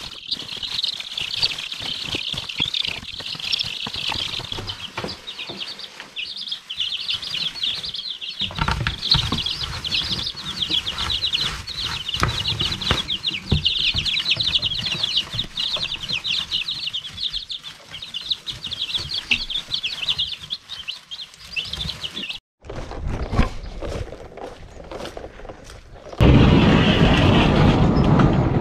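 Baby chicks peeping continuously, many high peeps overlapping, with scratching and rustling in wood shavings. Near the end the peeping stops and a loud rushing noise takes over.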